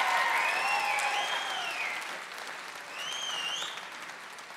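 Theatre audience applauding, the clapping dying away over a few seconds, with a couple of high rising-and-falling calls from the crowd over it.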